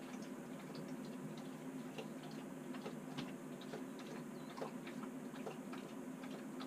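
Faint steady low hum with scattered light, irregular clicks and ticks.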